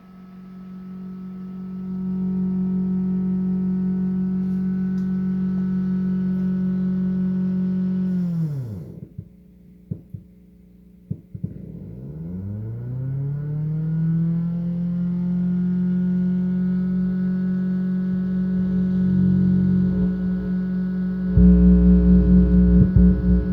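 Ampeg SVT-3 Pro bass amp's cooling-fan interference bleeding into the signal as a steady pitched whine with many overtones. The pitch sinks away to nothing about nine seconds in, a few clicks follow, and it glides back up about three seconds later as the fan spins up again. Near the end a louder low fluttering hum comes in.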